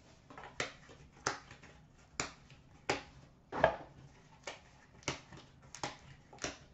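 A series of about nine short, sharp clicks or taps, roughly one every two-thirds of a second, a little uneven.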